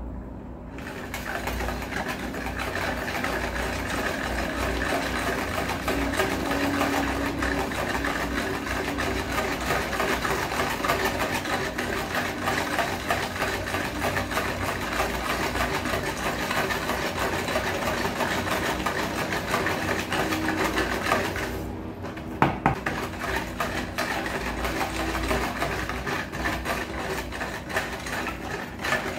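Wire whisk beating sugar into red gelatin liquid in a plastic tub, a rapid continuous clatter of the wires against the tub. It stops briefly about three-quarters of the way through, with a couple of sharp clicks, then starts again.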